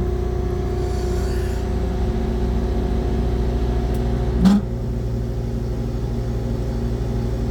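AAON rooftop HVAC unit running with a steady mechanical hum made of several fixed tones. A single sharp knock comes about four and a half seconds in.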